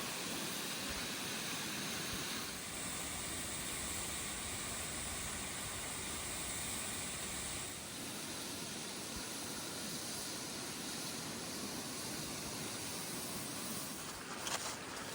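Steady hiss of rushing water from a waterfall. Its tone shifts about two and a half seconds in and again near eight seconds.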